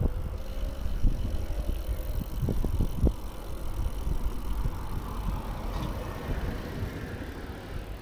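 Wind rumbling on the microphone of a camera riding along on a moving bicycle, with road noise and a few knocks in the first three seconds.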